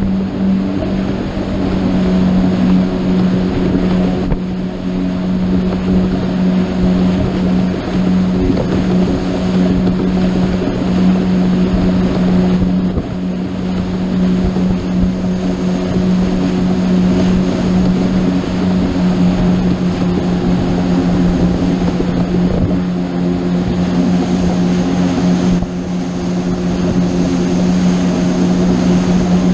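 Motorboat engine running under way with a steady, unbroken drone, over wind noise on the microphone and rushing water.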